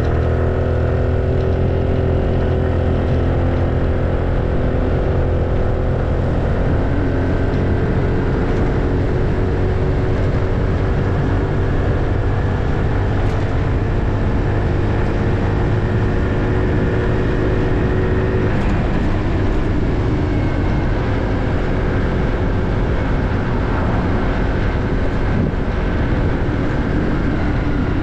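Honda Navi minibike's small single-cylinder engine running steadily under way, with a heavy low rumble.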